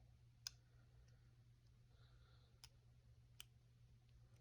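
Three faint, sharp clicks of a hook pick working the pin stack inside a Master Lock Pro Series 6840 padlock's five-pin core, as the picker searches for pin 5 at the back of the lock.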